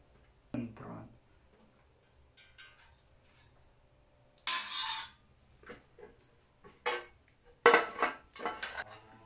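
Foil MRE pouch crinkling as it is handled and opened, then a run of knocks and clinks against an aluminium mess tin as the food is tipped in, loudest near the end.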